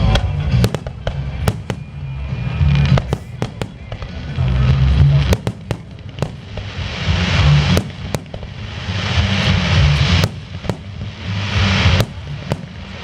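Aerial fireworks shells bursting in a rapid, irregular series of sharp bangs, with a crackling hiss building from about halfway through.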